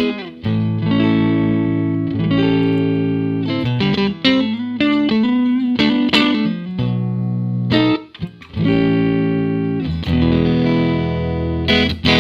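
Fender Stratocaster electric guitar played through a 1959 Fender 5F6-A tweed Bassman tube amp with four 10-inch speakers. Chords are strummed and left to ring, in phrases with a few short breaks, and the playing stops at the very end.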